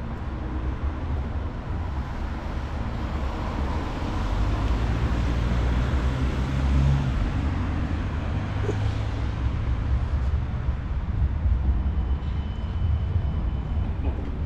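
Street traffic: a motor vehicle's engine rumbling, swelling louder from about four seconds in as it passes close, then easing back to a steady traffic drone.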